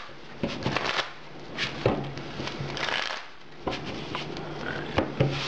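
Pokémon trading card decks being shuffled by hand: an irregular string of quick card clicks and rustles, over a faint steady low hum.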